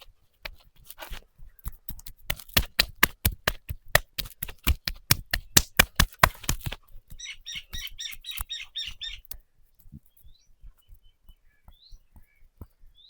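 Rapid sharp hand strikes on the body during a massage, several a second for about six seconds. Then a bird chirps in a quick run of repeated high notes, with a few faint chirps after.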